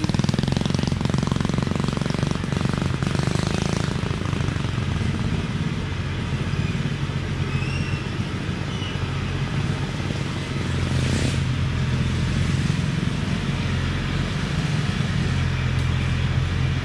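Diesel engine of a heavily loaded Thaco Foland truck running steadily as it crawls along a dirt forest track, with one sharp knock about eleven seconds in.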